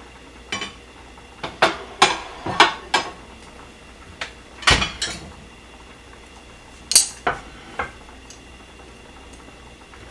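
Kitchen dishes and utensils clattering: about a dozen sharp knocks and clinks at irregular intervals, with a heavier thud just before five seconds in and the loudest clink near seven seconds in.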